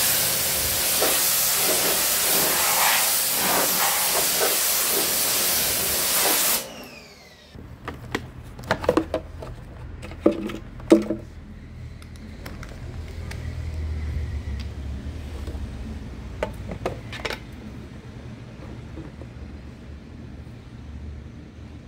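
Parkside PHD 170 D2 pressure washer spraying a high-pressure water jet against a car's side panels, a loud steady hiss that cuts off abruptly about six and a half seconds in. After it, scattered light clicks and knocks of a plastic detergent bottle being unscrewed and fitted to the washer's detergent tank.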